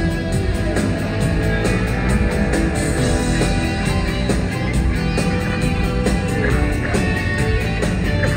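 Live rock band playing at full volume: guitar over a steady drum beat.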